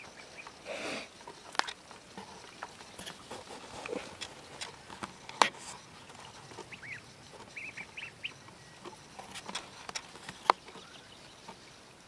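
Young ducks feeding from a dish and dabbling their bills in shallow water: scattered sharp clicks and small splashes, with a few short high calls about seven to eight seconds in.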